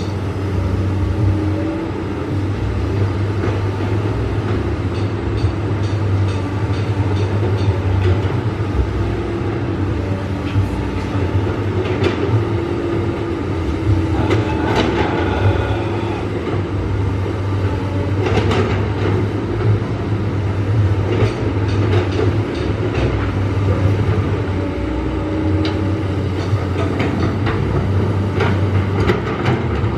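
Excavator's diesel engine running steadily under load, with a whine that steps up and down in pitch and a few sharp clanks and cracks as it digs.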